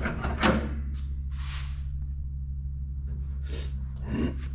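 Steady low hum with a few brief rustling, shuffling noises as a handheld camera is carried around the car.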